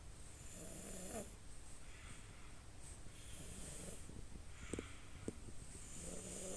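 Sleeping baby snoring: three snoring breaths, each a short raspy, pitched rasp under a second long, coming about every two and a half to three seconds. Two small clicks come about five seconds in.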